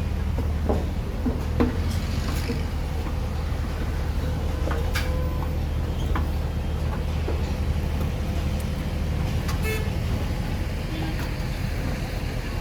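Steady low rumble of engines from road traffic or site machinery, easing off about nine seconds in, with a short vehicle horn toot.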